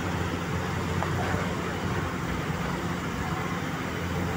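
Steady engine and road noise of a moving vehicle, a constant low drone.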